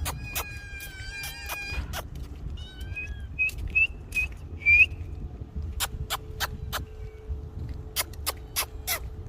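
Kitten mewing: a drawn-out high call at the start, then several short high mews that rise at the end, the loudest a little under five seconds in. Sharp clicks run throughout over a low steady rumble.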